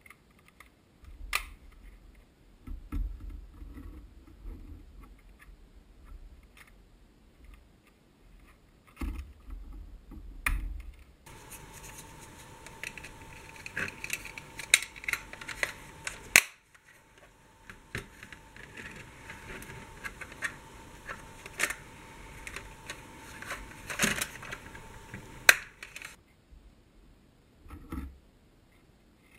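Hard plastic sporks and their plastic holder being handled: scattered clicks and snaps as parts are fitted together, rubbing and knocks on the tabletop. From about 11 s to 26 s the clicks come more densely over a faint steady tone, with a few sharper snaps near the end of that stretch.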